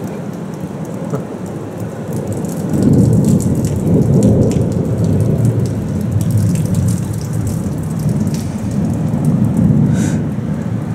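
Thunder rolling in a long low rumble that builds about three seconds in, over steady rain with close drops ticking.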